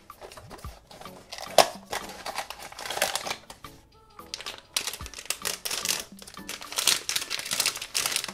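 Pop Mart blind box being opened by hand, its packaging crinkling and rustling in irregular bursts, over background music.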